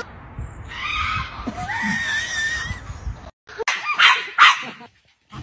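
A hen's shrill, wavering scream-like squawk, then a small terrier barking three times in quick succession.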